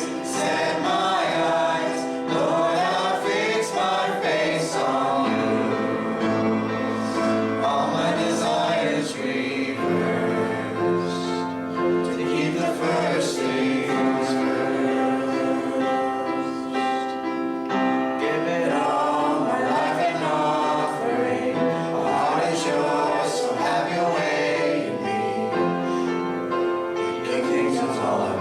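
Gospel-style worship music: a group of voices singing together over instrumental accompaniment.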